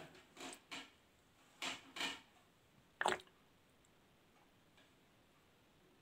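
Faint, brief grainy scrapes and clicks at a dishwasher's salt reservoir as it is topped up with dishwasher salt. There are five short sounds in the first three seconds, and the sharpest comes about three seconds in.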